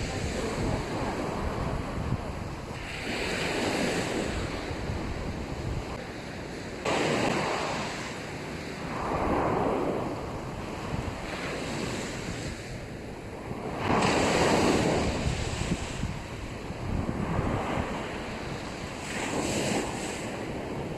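Small sea waves breaking and washing up on a sandy beach, the wash swelling and easing every few seconds, with wind buffeting the microphone.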